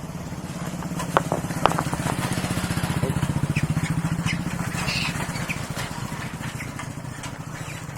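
Motorcycle engine running at low speed as the bike passes close by, growing louder toward the middle and then fading away. A few sharp clicks sound in the first two seconds.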